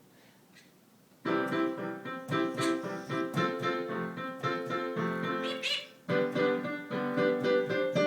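Piano playing a run of chords, starting about a second in, with a short break about six seconds in before the playing resumes.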